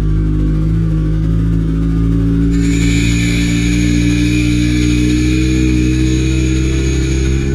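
Motorcycle engine running at low speed as the bike rolls forward, its pitch rising slowly. A steady high whine joins about two and a half seconds in and stops just before the end.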